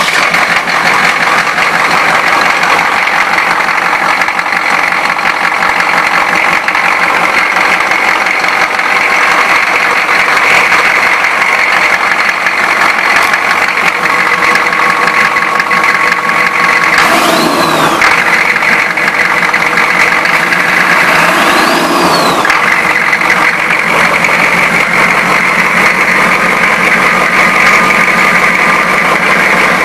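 Hummer H1 6.5L turbo-diesel V8, freshly rebuilt, running steadily on a test stand. There are two brief rise-and-fall swells past the middle.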